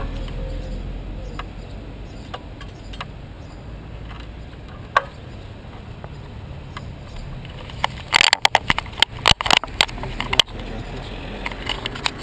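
Low rumble with scattered clicks, then a dense run of loud knocks and scrapes lasting about two seconds, starting about eight seconds in.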